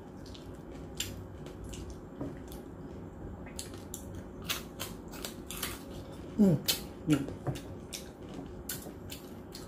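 Close-miked eating of crispy roast pork lechon: a run of sharp crunches and mouth clicks as the skin and meat are bitten and chewed. A couple of short, falling vocal hums come about six to seven seconds in.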